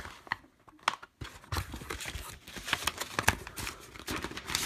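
Plastic DVD case and its paper cover artwork being handled and crinkled: a few sharp clicks at first, then a run of rustling and clicking from about a second and a half in.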